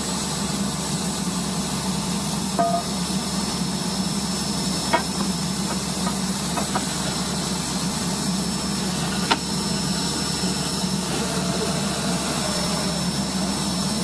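Water-well drilling rig running steadily: an even engine drone with a hiss over it, broken by a few short sharp knocks.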